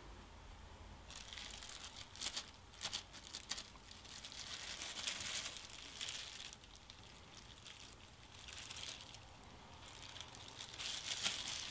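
Faint, intermittent clicks and crinkly rustling of chopsticks handling thin slices of raw beef and laying them into a glass pot of hot pho broth, with a few sharp ticks a couple of seconds in.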